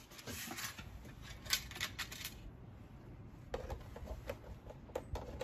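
Handling noise of a wooden sign being taken down from vinyl siding: rubbing and scraping against the siding for about two seconds, then a few light knocks and clicks.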